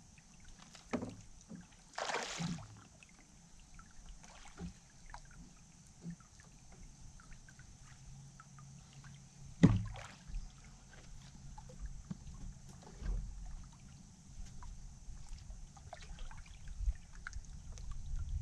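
Scattered light knocks and clicks aboard a fishing boat, over a low rumble. A brief rushing swish comes about two seconds in, and a single sharp knock near the middle is the loudest sound.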